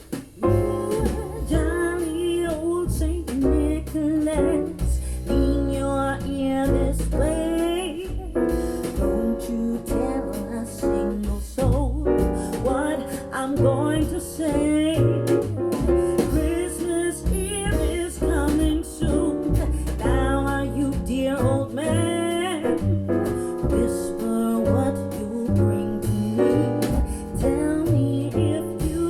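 Music test track played through a Grundig Super HiFi Box 2500 loudspeaker: a sung melody over piano and bass. It comes in just after a brief pause at the start.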